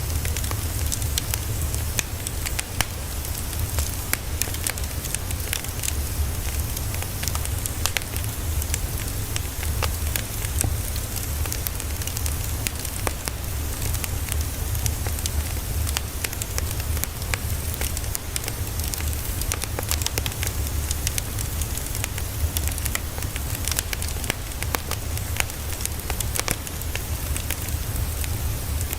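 Steady white-noise ambience: a dense, even crackling and hiss over a low rumble.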